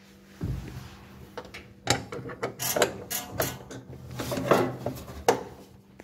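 Irregular clicks and knocks of parts and panels being handled on a Bosch front-load washing machine, with a dull thump about half a second in and a faint steady hum underneath.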